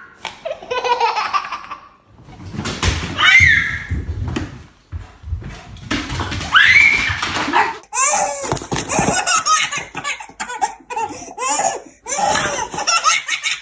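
Repeated bursts of laughter, including a baby's giggling laughter.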